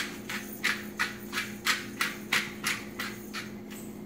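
Hand-held pepper grinder being twisted over a raw pork roast, a regular crunching grind about three times a second, with a louder knock right at the end.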